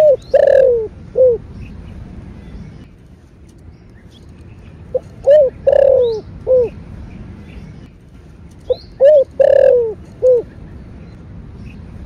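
Spotted dove giving its cooing call song: three phrases about four seconds apart. Each phrase is a short lead-in note, a coo, a longer falling coo and a final coo.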